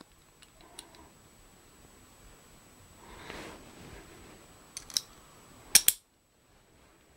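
Small metal rifle-lock parts, bronze castings and a steel hammer, clicking against each other as they are handled and fitted together by hand. A few faint clicks and a soft handling rustle come first, then sharper clicks, with the loudest pair just before the sound drops away near the end.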